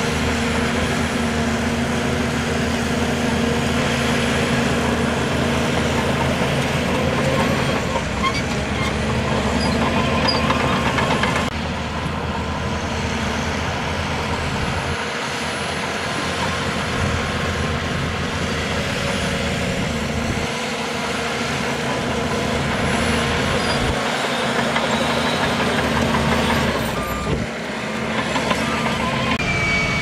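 Crawler bulldozer's diesel engine running under load as it pushes rock and soil, a loud steady engine note that shifts about a third of the way in.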